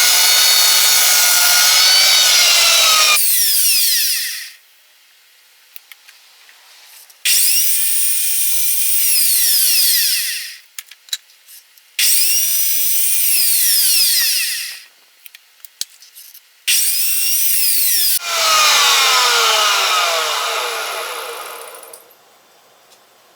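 A corded power saw cutting pallet wood in four runs of a few seconds each. After each cut the motor whine falls away as the saw spins down, and there are light clicks and knocks in the pauses between.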